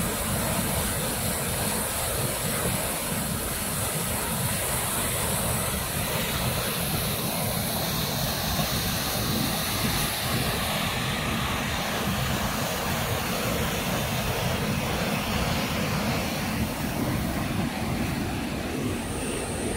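Fast mountain river rushing over a weir and rapids: a steady, unbroken rush of white water.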